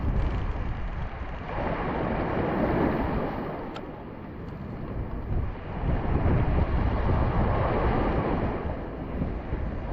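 Choppy sea water washing in the shallows in slow surges that swell and ease every few seconds, with wind rumbling on the microphone.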